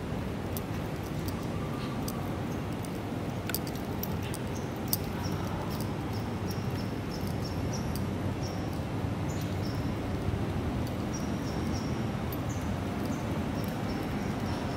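Steady low background noise of a city street, with many short, high-pitched chirps scattered through it, more of them in the second half.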